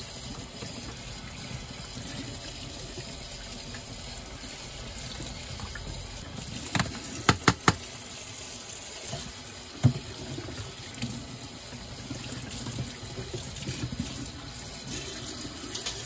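Tap running into a stainless steel sink, water splashing over a plastic tumble dryer lint filter being rinsed by hand. About seven seconds in there is a quick run of four sharp clacks, and another knock a couple of seconds later.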